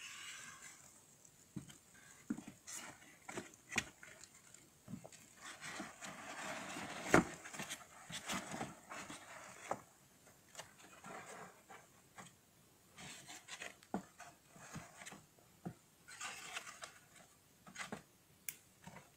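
Paper-pulp egg flats being handled and shifted: scattered light clicks and taps with spells of rustling scrapes, and one sharper knock about seven seconds in.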